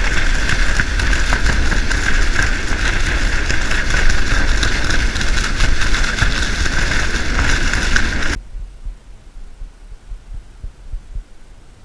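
Small motorboat under way: a loud, steady rush of wind on the microphone and water past the hull over the outboard's running. It cuts off abruptly about eight seconds in, leaving only faint wind.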